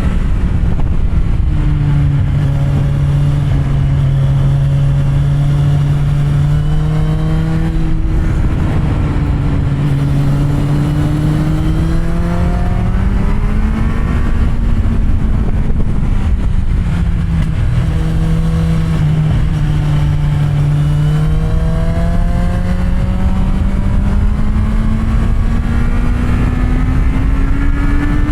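Kawasaki Z750R inline-four engine with an aftermarket SC-Project exhaust, ridden at moderate revs. Its note rises and falls with the throttle several times, breaks briefly twice, and climbs slowly over the last several seconds, over a low wind rumble.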